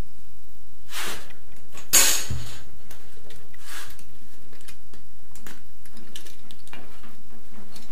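Hand tools being handled and set down on a wooden board: a few knocks and scrapes as a steel ruler is laid down and a pipe cutter is picked up. The loudest knock comes about two seconds in, and there are light clicks near the end.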